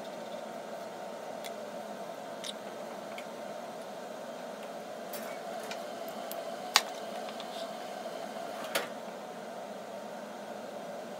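Steady background hiss and hum of a quiet room, broken by a handful of short, sharp clicks. The loudest click comes about two-thirds of the way in, and a smaller one follows about two seconds later.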